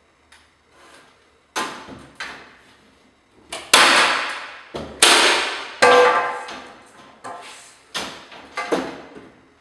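Metal drywall corner bead being struck as it is fastened onto an outside corner: about a dozen sharp metallic strikes, each with a ringing tail that dies away, the loudest in the middle.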